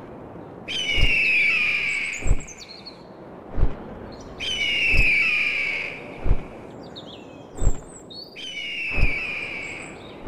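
Eagle screech sound effect: three long screeches, each falling slightly in pitch, over a deep thump that repeats about every 1.3 seconds.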